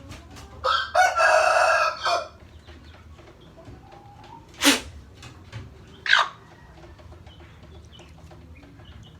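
A rooster calls loudly once, about a second and a half long, then two short sharp sounds follow about a second and a half apart.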